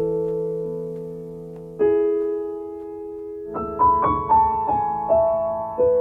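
Slow piano background music: held chords, then a short melody of single notes falling step by step from about three and a half seconds in.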